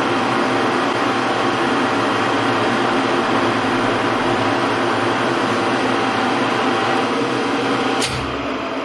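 Large metal lathe running, its motor and gearing giving a steady hum with several whining tones. About eight seconds in there is a sharp click, after which one of the whines stops and the hum drops slightly.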